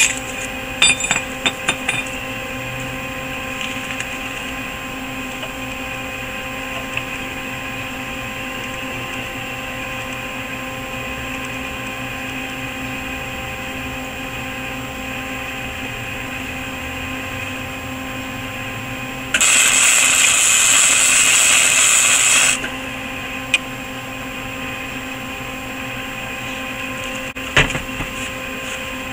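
MIG welder arc running a short weld of about three seconds, a dense steady hiss, joining a square steel tube to the bracket for an extra go-kart axle bearing. A steady hum runs underneath, with a few clicks and knocks in the first two seconds and near the end.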